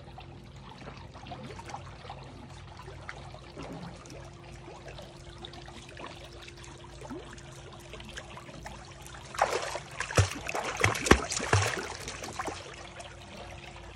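American cocker spaniel swimming in a pool: soft lapping water at first, then loud splashing from about nine and a half seconds in, as the dog paddles hard and scrambles at the pool edge to climb out.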